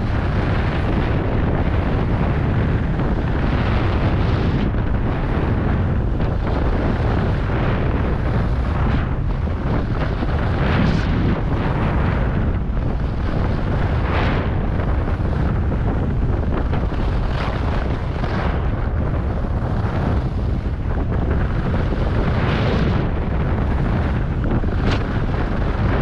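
Wind buffeting the microphone during a fast descent on snow, a steady low rushing. Brief hissing swishes of edges scraping across the snow come every few seconds.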